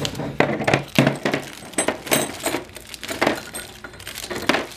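Steel-backed Mazda OEM crankshaft main bearing shells clinking against each other and being set down on a bench, a quick string of sharp metallic clinks, a few with a brief high ring.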